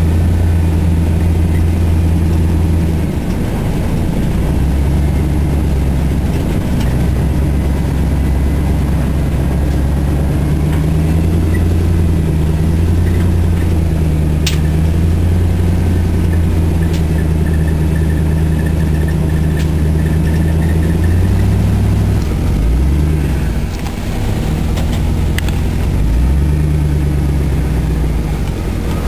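GM 5.3-litre Vortec V8 with Cherry Bomb dual exhaust, heard from inside the cabin of the rear-engined Beetle while driving, its note steady for long stretches and dropping off briefly a few seconds in and again near the end. One sharp knock about halfway through.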